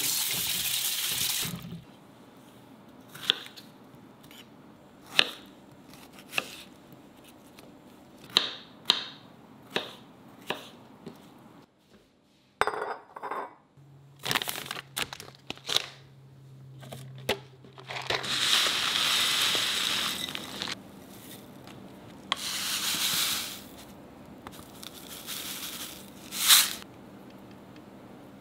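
Kitchen food-prep sounds: a tap running over strawberries in a metal colander for about the first two seconds, then a string of clinks and knocks from glass jars and containers being handled. Later come two longer stretches of hissing noise and a sharp clink near the end.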